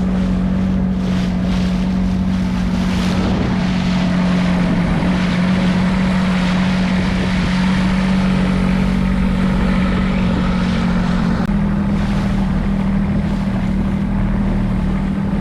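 Fishing boat's engine running steadily under way, a constant low drone that shifts slightly in pitch a couple of times, with wind on the microphone and water rushing past.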